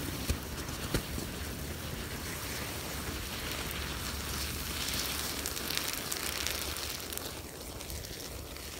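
Thermite (aluminium and iron oxide) burning in a crucible: a steady rushing hiss with two sharp pops in the first second, swelling around the middle and easing off near the end as the reaction dies down.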